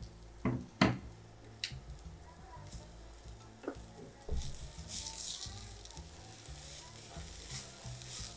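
Wooden spatula stirring and scraping raw rice grains around a granite-coated nonstick pan while the rice fries lightly in oil, with a faint sizzle under the scratchy shuffling of the grains. A few sharp knocks of the spatula on the pan in the first couple of seconds.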